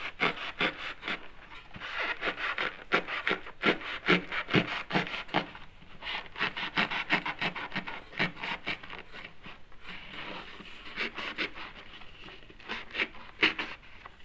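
A blade sawing through the stiff, multi-layered toilet-paper papier-mâché shell, giving a quick, irregular run of rasping, crunching strokes, a few a second, with short pauses.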